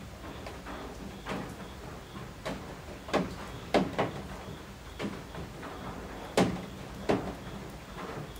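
Rain dripping from the eaves: heavy drops falling at irregular intervals, each a sharp tap on a hard surface, about eight in a few seconds, over a steady background of rain.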